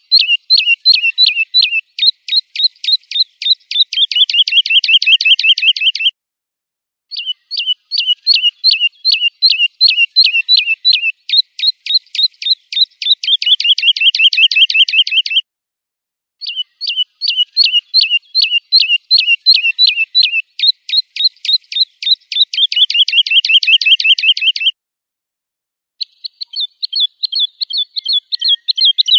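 Lark song, a clear run of sharp chirps at about three to four a second that quickens into a fast trill. The phrase comes three times, much alike each time, with a gap of about a second between. A fourth phrase starts near the end.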